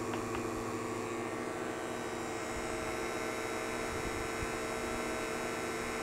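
Refco and Navac HVAC vacuum pumps running with a steady hum, having pulled their line sets down to a deep vacuum of about 9 microns.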